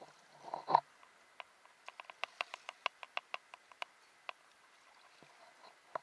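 Sea water sloshing against a camera held at the surface, with one louder splash under a second in. Then comes a run of about fifteen sharp little clicks, several a second, over the next few seconds.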